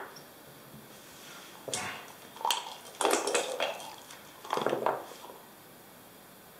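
Backgammon play: a checker set down on the board, then dice clattering as they are gathered, shaken in a dice cup and rolled onto the board, in several short bursts of clicks that stop a little after the middle.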